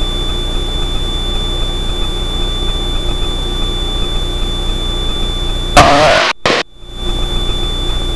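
Extra 300L aerobatic plane's engine and propeller droning steadily in the cockpit in cruise, with a thin steady high-pitched whine over it. About six seconds in there is a short loud burst, then the sound drops out for about half a second and comes back.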